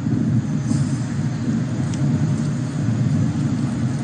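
Kawasaki C-2 transport aircraft's twin turbofan engines heard from a distance, a steady low rumble.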